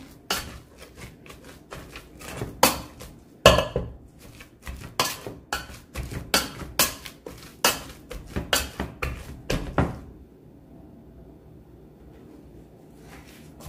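Wire potato masher knocking against a stainless steel pot while mashing boiled potatoes and spinach, a string of irregular clanks that stops about ten seconds in.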